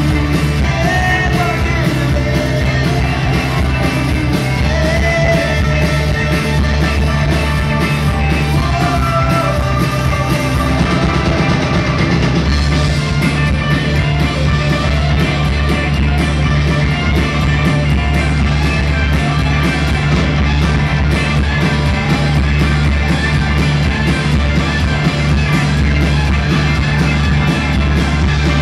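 Rock band playing live, heard from the audience: bass and drums holding a steady groove under a wavering lead melody line in the first half, the cymbals easing back about eleven seconds in.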